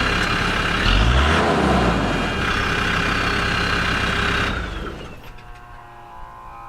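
Land Rover Discovery 2 Td5 five-cylinder turbodiesel idling on fresh oil, briefly revved about a second in, then switched off about four and a half seconds in. A thin whine falls in pitch and fades as it stops, the centrifugal oil filter spooling down.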